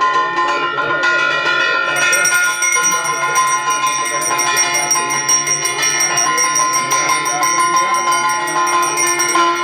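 Brass puja hand bell (ghanta) rung rapidly and continuously for the aarti, a dense metallic ringing. A higher, brighter ringing joins about two seconds in.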